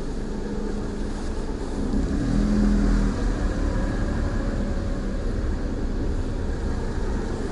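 Car engine and tyre rumble heard from inside the cabin as the car creeps forward at low speed, the engine note rising briefly about two seconds in.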